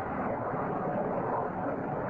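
Nirbhay cruise missile in flight: a steady rushing noise with no distinct tone.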